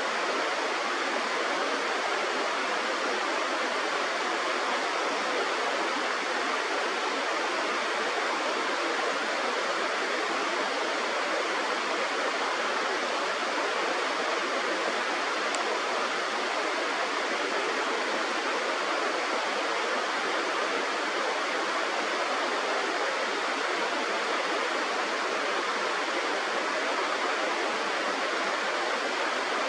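Steady rush of flowing river water, an even noise with no change in level.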